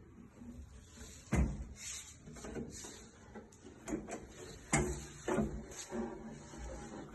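Wooden knocks and clunks of carpentry or cabinet work, a sharp one about a second in and another near five seconds, with lighter knocks and scraping between them.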